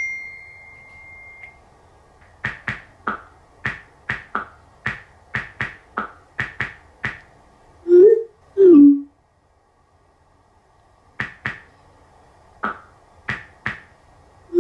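iPhone keyboard clicks as a text message is typed, a few taps a second in two runs, with two short swooping message tones about halfway through as the message is sent.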